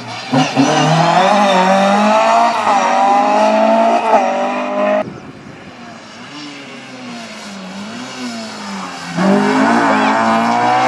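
Rally cars driven flat out on a stage: the first car's engine revs up hard through the gears, its pitch dropping briefly at each gear change, then cuts off suddenly. A quieter, more distant engine follows, and about nine seconds in a second car's engine comes in loud again, revving high.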